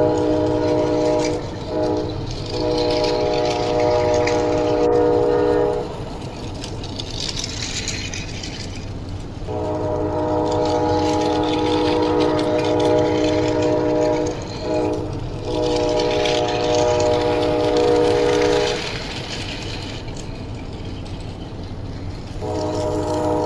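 Train horn sounding in long multi-tone blasts, each broken by a brief gap. The same pattern repeats about every thirteen seconds over the steady rumble and clatter of a running train.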